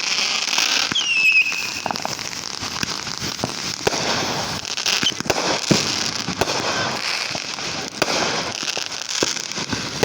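Fireworks crackling with a dense, continuous run of sharp pops, and a short falling whistle about a second in.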